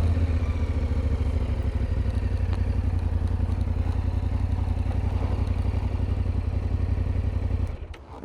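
Motorcycle engine running at a low, steady speed with even firing pulses, then stopping sharply near the end.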